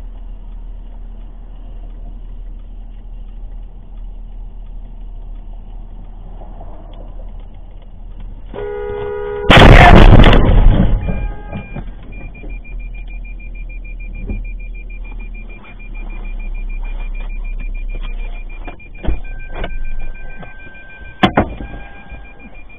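Road and engine noise inside a moving car, a short car horn blast about eight and a half seconds in, then a loud crash as the car collides with another car. Afterwards a high dashboard warning chime beeps rapidly and continuously, with a few knocks near the end.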